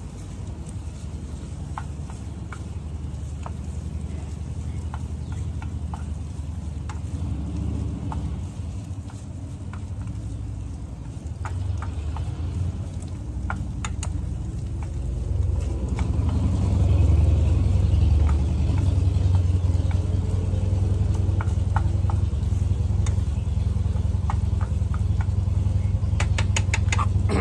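A spatula stirring and scraping grits in a frying pan, small scattered clicks and taps. Under it a steady low engine rumble from a motorcycle, which grows louder about halfway through and becomes the loudest sound.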